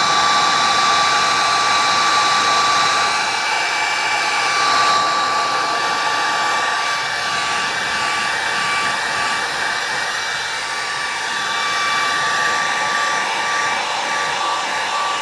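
Handheld hair dryer running steadily, blowing hot air over wet white paint laid on a black base coat to make it crackle. A steady whine sits over the rush of air.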